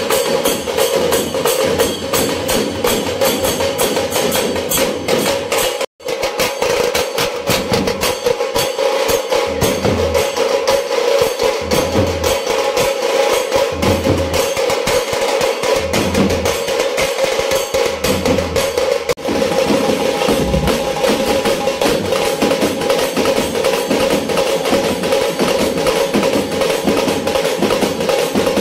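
Tasa drum band playing: fast, continuous stick rolls on tasa drums, with deep bass-drum thumps coming in every second or two through the middle. The sound cuts out for an instant about six seconds in.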